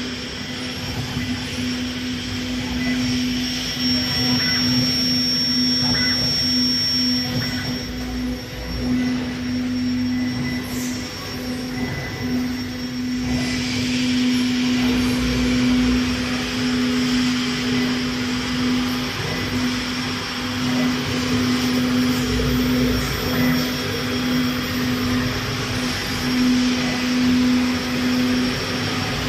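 CNC router machine running: a steady hum holding one low pitch over a constant noisy rush.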